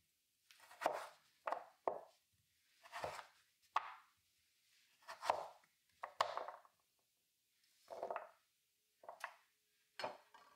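Chef's knife slicing through raw butternut squash and knocking down onto a wooden cutting board, about ten separate cuts roughly a second apart.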